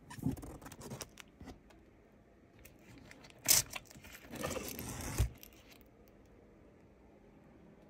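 Comic books being handled and flipped through in a storage box: rustling and scraping with scattered clicks. The loudest is a sharp rustle about three and a half seconds in, followed by a longer rustle that ends in a knock just after five seconds.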